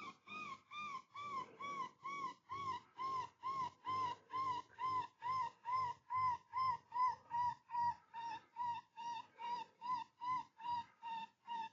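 Electronic predator call playing a looped distress sound: a rapid, even series of short whining cries, about two and a half a second, each rising and falling in pitch.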